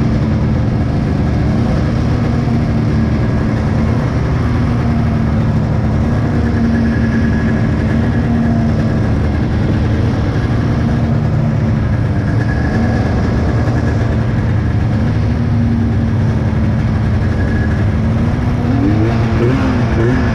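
Several snowmobile engines running at once on a race start line, holding a steady low throttle with small rises and falls in pitch. Near the end, one engine is blipped up and down quickly, about twice a second.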